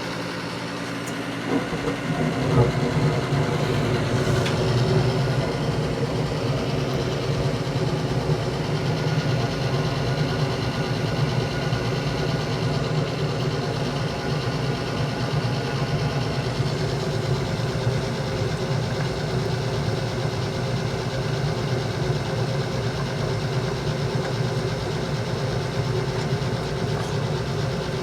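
Gas furnace starting up: the draft inducer motor runs steadily, and about two seconds in the gas burners light and keep burning with a steady low rush of flame. The start-up goes ahead now that the pressure switch has closed, after its clogged tubing was cleared.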